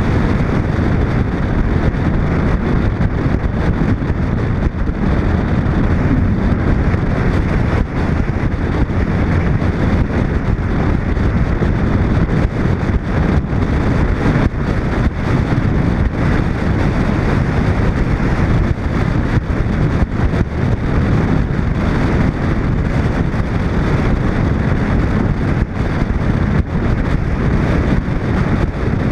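Steady wind rush buffeting a camera microphone mounted on the side of a moving 1941 Chevy, mixed with its road and driving noise.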